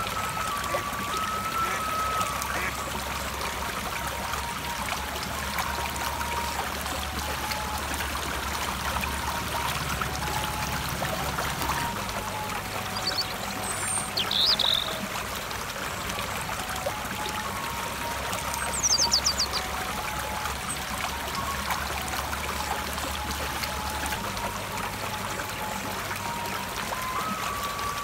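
Water running fast over stones in a small irrigation stream, a steady rushing gurgle. A bird chirps about halfway through and gives a quick high trill a few seconds later. Soft, slow background music with long held notes plays underneath.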